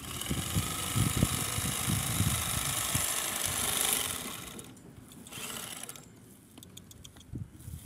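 Handheld bag-closing sewing machine running steadily as a compost sack is stitched shut, stopping about four and a half seconds in; faint scattered clicks follow.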